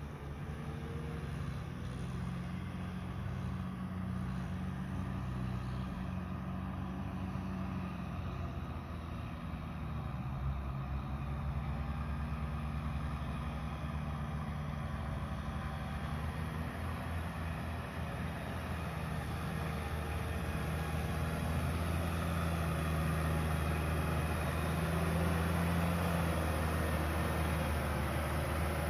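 Kubota M6040 tractor's four-cylinder diesel engine running steadily as the tractor pulls a rotary tiller through deep paddy mud, growing louder toward the end as it comes close.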